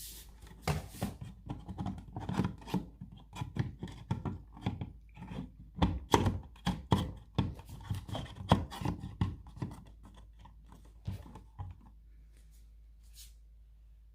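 Handling noise: a run of irregular clicks and light knocks, busiest in the middle and thinning out after about ten seconds.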